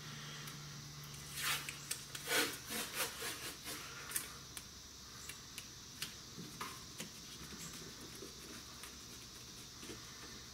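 Painter's tape being pulled off its roll and wrapped around a bundle of Roman candles: a run of rasping, rubbing swishes in the first four seconds, then fainter scattered crinkles and taps.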